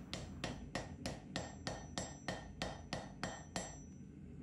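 Hand hammer tapping lightly on a red-hot stack of forge-welded US quarters held in tongs on an anvil, about four strikes a second with a faint ring after each. These are the first light blows that set the forge weld in the copper-nickel mokume gane billet. The tapping stops near the end.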